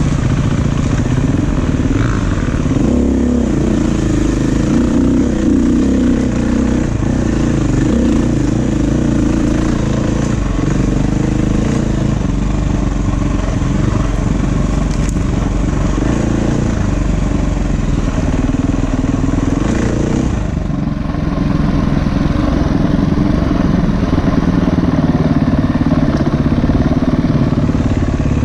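A 350 cc dirt bike's engine running continuously as it is ridden along a rough trail, the engine note rising and falling with the throttle. Its pitch and level dip briefly about three quarters of the way through as the throttle is eased off, then pick up again.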